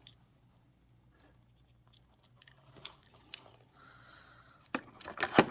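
Small plastic product jars and packaging being handled: a few faint clicks and taps, with the two loudest near the end.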